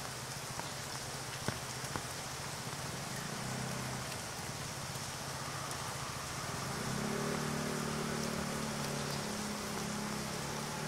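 Heavy rain falling on an umbrella and the ground around it, a steady hiss with a few separate drops. A low steady hum joins about three seconds in and grows louder from about seven seconds in.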